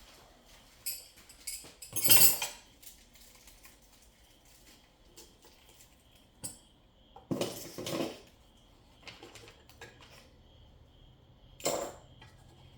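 Hard objects being handled and set down, clinking and knocking now and then, with louder clatters about two seconds in, around seven to eight seconds, and near the end.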